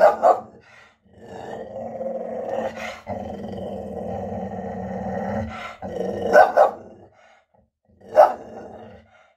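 English bull terrier barking briefly, then growling in one long low rumble for about four seconds, then a quick double bark about six seconds in and a single bark near eight seconds. This is alert, protective barking at a noise outside the window.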